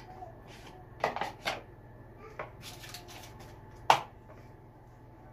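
Kitchen clatter as cottage cheese is spooned into a plastic mixing bowl: a spoon and plastic containers knocking against the bowl and table, a few separate knocks with the sharpest about four seconds in.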